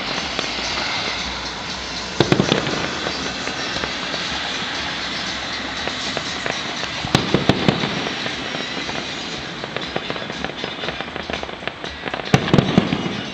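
Fireworks display: a continuous dense crackle of bursting shells, with clusters of heavier bangs about two seconds in, around seven seconds, and again near the end.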